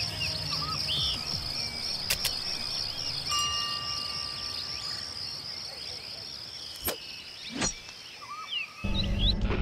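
Outdoor ambience of a steady, evenly pulsing insect chorus with scattered short bird chirps and a few sharp clicks. Louder music comes in suddenly near the end.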